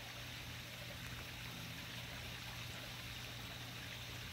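Steady outdoor night background: an even hiss, brightest in the upper range, with a constant low hum beneath it.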